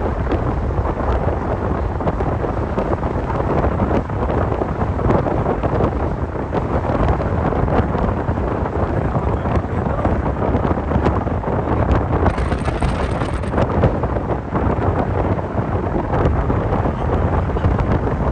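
Wind buffeting the phone microphone over the steady rumble of a moving vehicle, most likely a bus under way.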